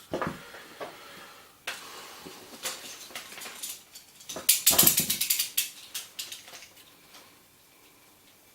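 Clicking and clattering of a small plastic mechanism being handled, with a burst of rapid clacking lasting about a second near the middle; it goes quiet near the end.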